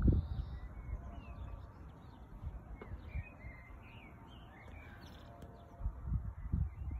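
Small birds chirping and twittering. Low, uneven rumbling from wind buffeting the microphone at the start and again near the end.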